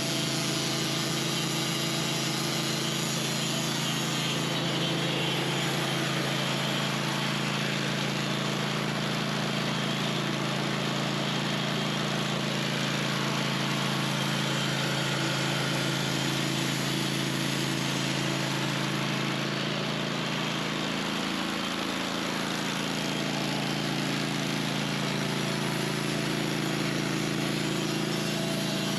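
Sawmill running steadily under load, its engine humming evenly beneath the hiss of the blade sawing through a large oak log.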